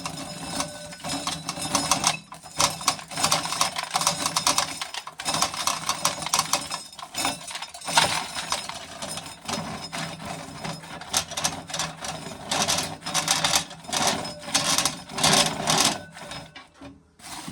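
Corn sheller shelling ears of corn: a dense, rapid rattling and clatter of cobs and kernels in the machine, with a few short breaks.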